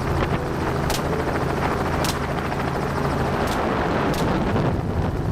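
Helicopter flying, a steady engine and rotor drone, with about four sharp cracks at irregular intervals.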